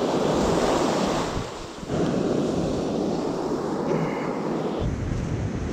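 Ocean surf washing onto the beach in a steady rush of noise, with wind buffeting the microphone, heavier in the last second.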